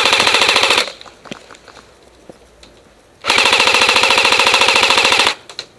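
Airsoft rifle firing on full auto, very close: a short burst, then a couple of seconds later a longer burst of about two seconds, each a fast, even rattle of shots. Faint scattered clicks of more distant airsoft fire come in between.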